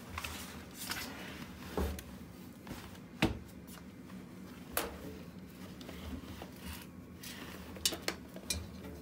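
Scattered knocks and clicks of objects being handled, the loudest a sharp knock about three seconds in, over a faint steady hum.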